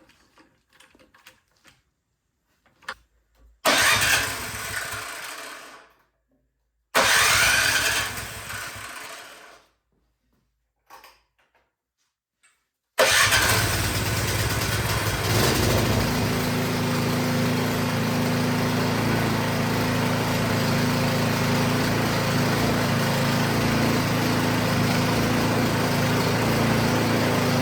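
Craftsman 22-inch snowblower's small engine firing twice and each time fading out, then catching on the third try and running steadily, settling to an even speed a couple of seconds after it catches.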